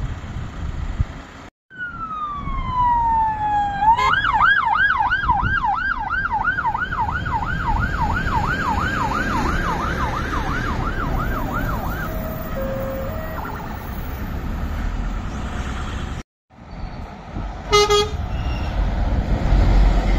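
Emergency-vehicle siren over road traffic: a falling wail that switches to a fast yelp, about three to four warbles a second, fading away after several seconds. A short horn toot sounds near the end.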